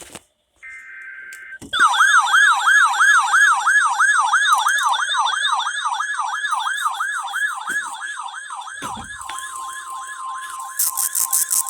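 Electronic siren wailing in a fast up-and-down yelp, about three sweeps a second. A steady high tone joins it late on, and quick high-pitched pulses are added just before it cuts off.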